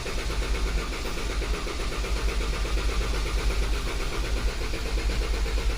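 Starter cranking the Dodge Durango's 3.6L V6 in clear-flood mode (throttle held wide open so the engine does not fire), giving a steady pulsing crank rhythm. The mechanic listens to it for uneven compression and thinks it may point to a low cylinder.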